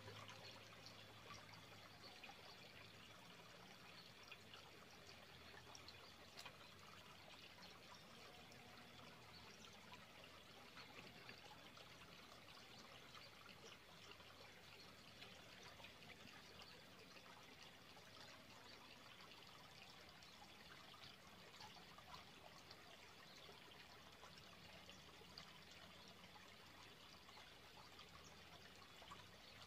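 Faint, steady trickle of water flowing in a small irrigation ditch.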